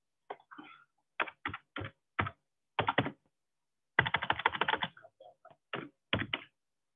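Typing on a computer keyboard: scattered single keystrokes and short runs, with a fast burst of keys about four seconds in.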